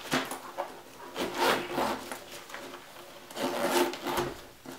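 Zippers of a fabric cosmetic bag being drawn shut in a few rasping strokes, with the bag rubbing against a wooden tabletop.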